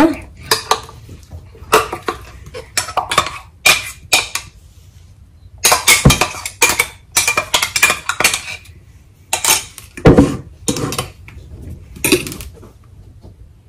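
A spoon scraping and clinking against a small stainless-steel mixer-grinder jar and a steel bowl while scooping out thick mint chutney. The clinks and scrapes come irregularly, and some ring briefly.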